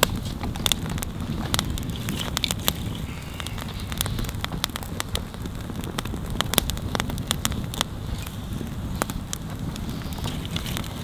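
Open campfire of dry twigs and split wood burning, with irregular sharp crackles and pops over a steady low rumble.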